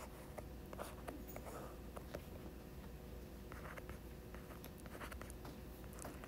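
Stylus writing on a tablet's glass screen: faint taps and short scratchy strokes, scattered irregularly, as lines and letters are drawn.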